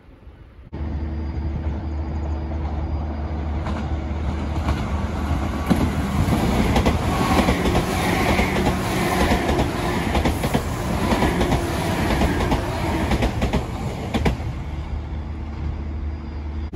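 Blue 'The Royal Express' electric train running along the station platform, its wheels clattering over rail joints above a steady low hum. The clatter dies away near the end.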